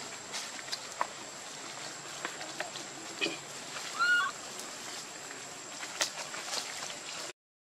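Macaques scuffling through dry leaf litter: scattered light rustles and crackles, with one short high squeak about four seconds in, over a steady high insect drone. The sound cuts out briefly just before the end.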